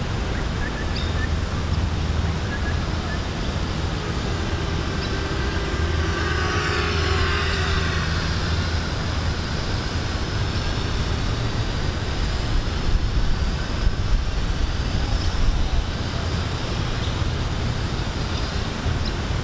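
210-size FPV racing quadcopter flying around, its motors and propellers giving a high whine that rises and falls in pitch as it moves and passes. Under it runs a steady low rumble.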